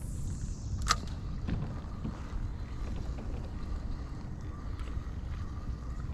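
Steady low rumble of wind and water around a kayak on the water, with a faint thin whine and one sharp click about a second in.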